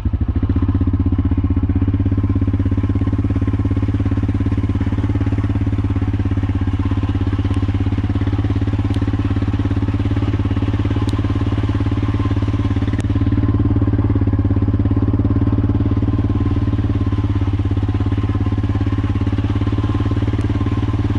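Four-wheeler (ATV) engine running at a steady pace, heard from on the seat.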